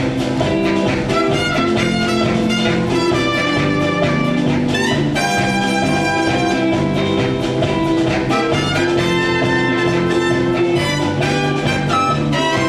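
Live band playing an instrumental passage with jazzy brass lines and held notes, steady and loud.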